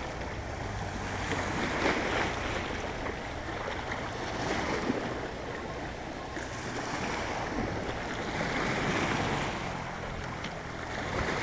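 Small lake waves lapping and washing over a pebble shore, swelling and easing every two to three seconds.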